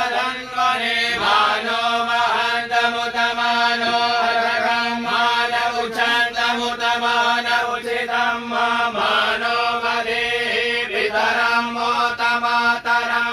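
Sanskrit mantras chanted in a nearly steady, monotone voice with short breaks for breath every couple of seconds, recitation that accompanies offerings into a havan fire.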